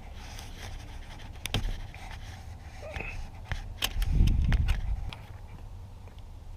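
Scattered light clicks and scraping of a 1/4-inch wrench with a T20 bit working at a screw in a steering column, with a low rumbling bump about four seconds in as the loudest sound.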